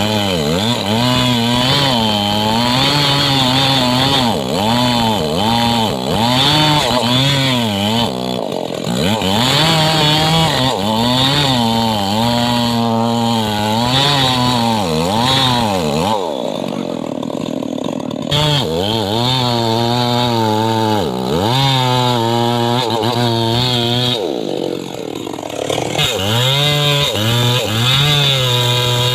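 Two-stroke chainsaw cutting into rain tree (trembesi) wood, its engine pitch repeatedly dipping under load and picking up again, with a hiss from the chain in the wood. It eases off briefly twice, about halfway and again near the end, before biting back in.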